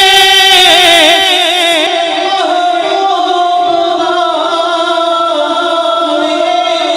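Devotional naat singing: a man's voice holds a long note with a strong wavering vibrato. About two seconds in the voice stops and a quieter, steady sustained backing tone carries on.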